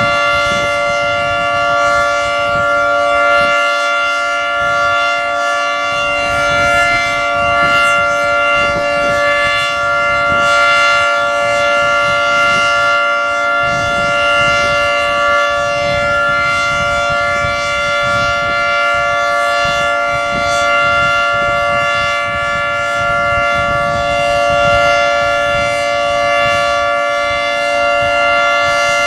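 Federal Signal 3T22 three-tone outdoor warning siren sounding during its monthly test, holding a steady chord of several pitches without rising or falling in pitch. The loudness swells and fades gently every few seconds as the rotating siren head turns.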